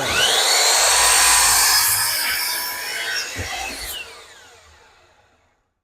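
Electric saw starting with a rising whine and cutting through a wooden board, then switched off and spinning down with a falling whine that fades out about five seconds in.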